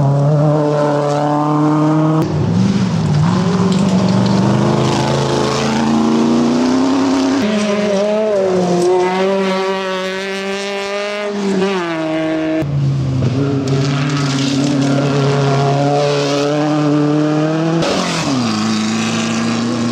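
Off-road race buggy engines running loud and revving, their pitch climbing and dropping with throttle and gear changes. The sound breaks off abruptly several times as one buggy pass cuts to the next.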